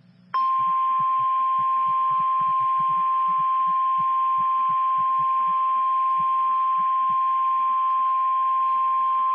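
NOAA Weather Radio warning alarm tone: a single steady tone of about 1050 Hz, switching on abruptly about a third of a second in and holding unbroken at full level. It signals that an alert, here a tornado watch, is about to be read. Faint irregular crackling sits underneath it for most of its length.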